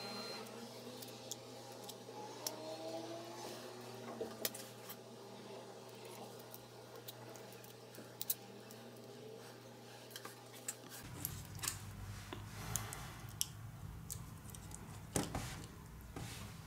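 Faint scattered clicks and rustling of Kapton tape being pressed and wrapped around an iPhone 6 logic board, over a low steady hum.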